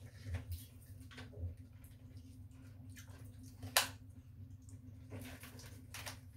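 Faint eating sounds of people eating with their hands: wet chewing and lip smacks, and fingers working food on plates, with a sharp click a little under four seconds in. A low steady hum runs underneath.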